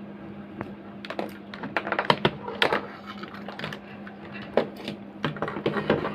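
Irregular clicking and tapping of multimeter probes and hands on an inverter's circuit board while its MOSFETs are tested, in two flurries: one from about a second in and another near the end. A steady low hum runs beneath.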